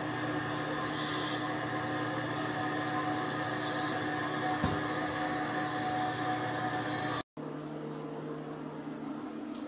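Steady electrical hum of a kitchen appliance, with a faint high whine that comes and goes and a single click about halfway. It drops out for a moment about seven seconds in and comes back quieter.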